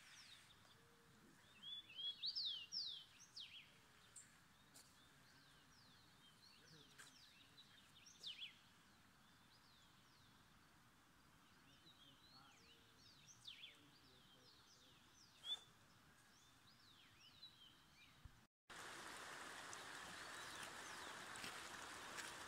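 Many small wild birds chirping and singing in short notes that sweep up and down, busiest about two seconds in. Near the end a sudden cut brings in the steady rush of a flash-flooded, muddy river.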